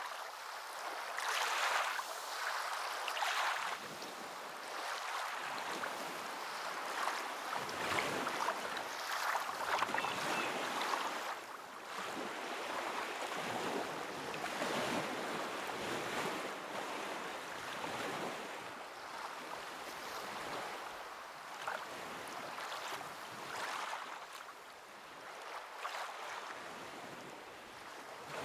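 Sea waves breaking and washing on a shore: a continuous rushing hiss that swells and eases every few seconds.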